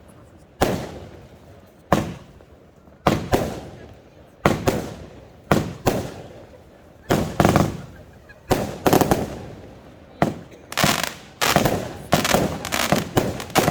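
Fireworks compound cake firing: a series of sharp bangs, each trailing off in a rumble, about one a second at first, then coming quicker and crowding together in the last few seconds.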